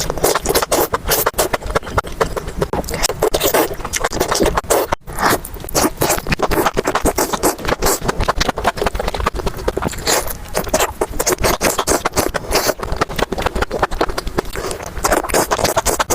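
Close-miked mukbang eating sounds: a dense run of crunching and chewing clicks, with a brief pause about five seconds in.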